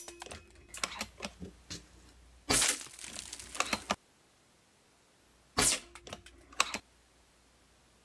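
A low-powered pellet air rifle firing at small toy targets: three sharp shots, one right at the start, one about two and a half seconds in and one about five and a half seconds in, with lighter clicks and clatter of pellet hits between them.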